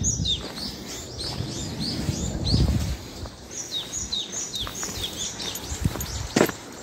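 A bird singing a long run of high, down-slurred chirps, about three a second. Footsteps on a dirt path sound under it for the first few seconds, and a single sharp click comes near the end.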